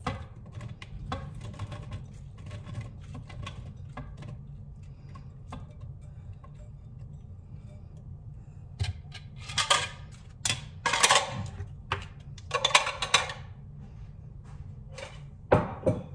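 Kitchenware clatter and scraping as diced apples are tipped and scraped out of a glass mixing bowl into a bowl of batter: light clicking at first, then a run of loud short scraping strokes, and a knock near the end, over a steady low hum.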